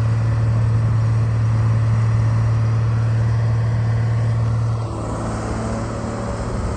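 Case 125B excavator's diesel engine running steadily, its note and level dropping slightly about five seconds in.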